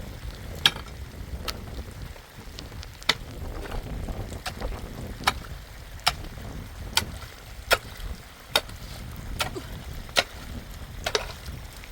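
Low wind rumble on the microphone, with sharp clicks or knocks at uneven intervals, roughly one a second.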